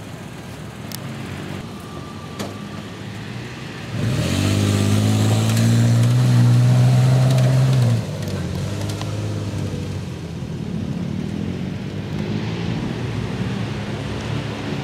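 Toyota FJ Cruiser's engine pulling up a dirt slope. About four seconds in it revs up to a loud, steady note, which cuts off suddenly a few seconds later. A quieter vehicle engine then runs at a steady note.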